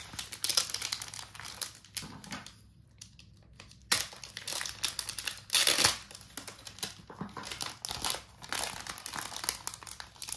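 Thin clear plastic sleeve crinkling as a sheet of photocard strips is pulled out of it by hand, in irregular bursts with a short lull about three seconds in.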